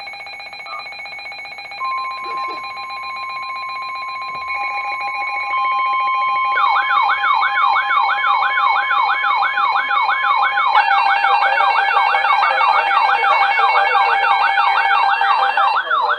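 A pile-up of electronic alarm tones. Several steady pitched tones sound together, a long steady tone joins about two seconds in, and from about six seconds a fast-wailing siren sweep starts. More wailing and tones stack on near eleven seconds, and the whole grows louder in steps.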